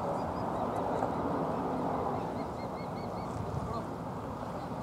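Osprey giving a run of short, high chirping whistles, which come faster between about two and a half and three seconds in, over steady background noise.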